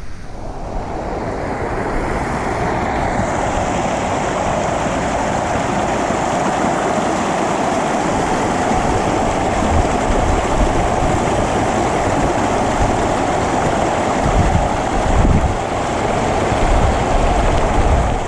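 Steady rushing water, an even unbroken roar, with wind buffeting the microphone in low rumbles now and then.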